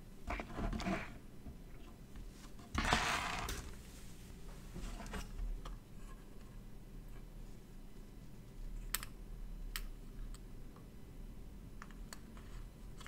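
Handling noise from a printed circuit board being shifted and turned over on a wooden bench, with a short scraping rush about three seconds in, then a few light, sharp clicks as soldering work goes on.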